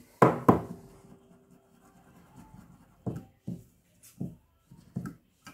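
Stainless steel milk pitcher knocked twice sharply on the counter, with a brief faint ring after, then several softer knocks about every half second to second as the pitcher and glass cup are handled, settling the freshly steamed milk before pouring.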